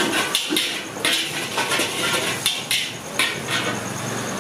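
Metal spatula clanking and scraping against a large wok as chicken fried rice is stir-fried, in irregular strikes a few times a second. The strikes stop about three and a half seconds in.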